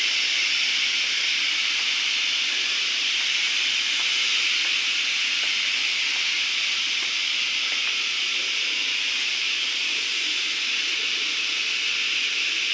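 Woodworking machine running with a steady, high-pitched hiss, unchanging throughout.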